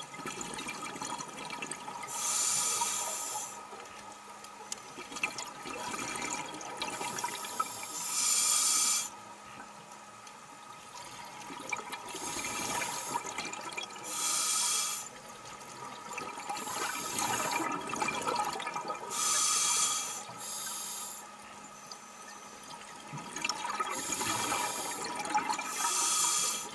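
Scuba diver breathing through a regulator underwater: a loud burst of exhaled bubbles about every five or six seconds, with quieter hissing breaths in between.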